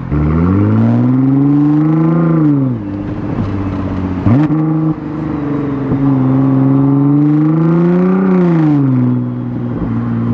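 Nissan GT-R R35's twin-turbo VR38 V6, with a catless midpipe, accelerating under throttle. The pitch climbs for about two seconds and drops back. A sharp change comes about four seconds in, the pitch climbs again to a peak near eight seconds, and it settles to a steady drone near the end.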